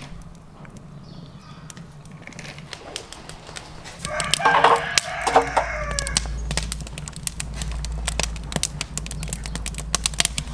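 A rooster crows once, about four seconds in. Through the second half, burning wood in a grill's firebox crackles sharply and often over a low steady rumble.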